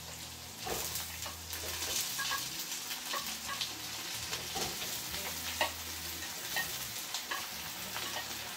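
Carrots and onions sizzling in a frying pan while chopped tomatoes are scraped in from a glass dish, the spatula making frequent short clicks and taps against the dish and pan.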